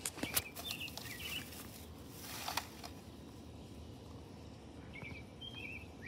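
Outdoor ambience with small birds chirping now and then, a few short chirps early on and again near the end. A few sharp clicks at the start and a brief rustle about two seconds in.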